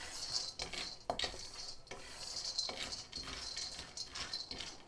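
Raw peanuts being dry-roasted in a dry metal wok and stirred with a wooden spatula: the nuts rattle and the spatula scrapes against the pan in a run of irregular strokes.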